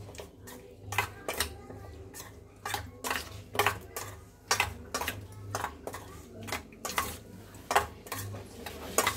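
Metal spoon knocking and scraping against a stainless steel bowl in irregular clinks, about one or two a second, while stirring boiled water chestnuts with chutney and spices.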